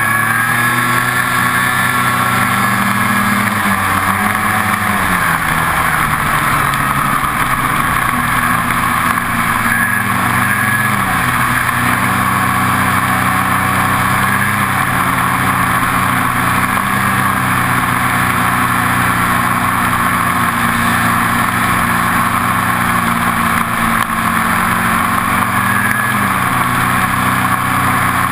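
Ski-Doo 800 two-stroke snowmobile engine running at speed, its pitch rising and falling several times with the throttle.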